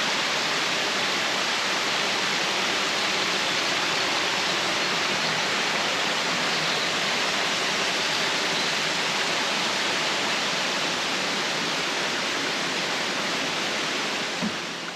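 Small waterfall on a stream, water rushing steadily; the sound drops away near the end.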